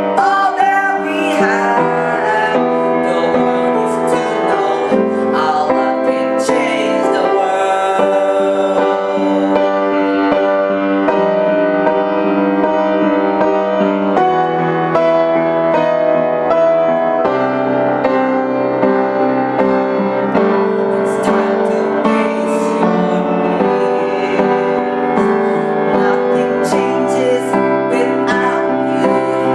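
Piano music from a pop ballad cover, with a singing voice over the piano at times.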